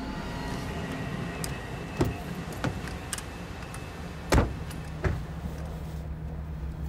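Steady low rumble of street ambience with several sharp knocks, the loudest about four and a half seconds in, like car doors being shut.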